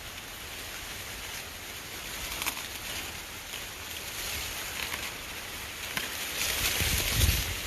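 Wind buffeting the microphone, with low rumbling gusts that swell near the end, and faint rustling and small clicks.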